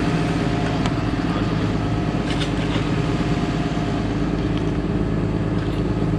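Engine running steadily at idle, an even unchanging drone with a few faint ticks over it.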